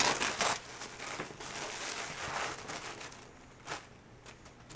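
Tissue paper rustling and crinkling as a wrapped bundle of clothing is pulled open by hand. It is louder for the first couple of seconds and then fades, with a single brief tap near the end.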